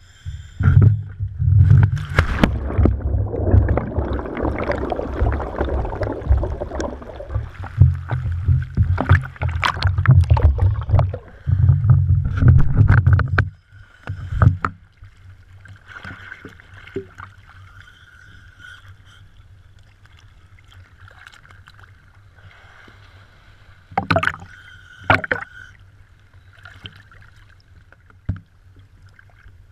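Seawater sloshing and churning against an action camera at the sea surface, loud and buffeting for the first dozen or so seconds, then dropping to quieter lapping with two short splashes near the end.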